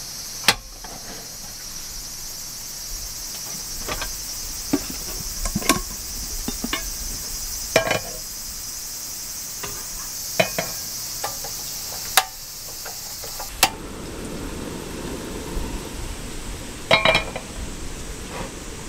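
Clicks and light metal clunks as a butane canister is locked into a portable gas stove and a frying pan is set on the grate. Near the end a sharp ignition click is followed by the burner running with a low steady rush.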